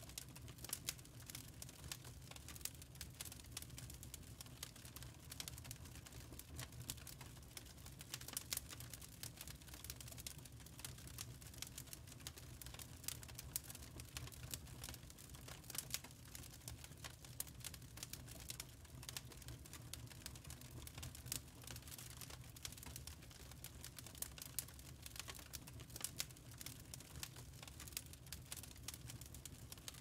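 Wood fire burning in a fireplace, crackling faintly with frequent small sharp pops at irregular intervals over a low steady rumble.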